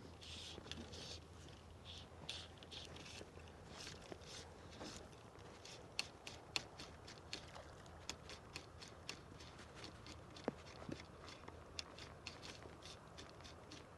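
Faint short rasps and ticks of fly line being stripped in by hand through the rod guides while retrieving a streamer, irregular at first and then coming quicker, about three or four a second, in the second half.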